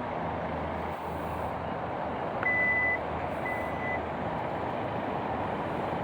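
Two short, high electronic warning beeps about a second apart, from the 2023 Hyundai Santa Fe's power liftgate closing automatically after its button is pressed. They sound over a steady background hiss.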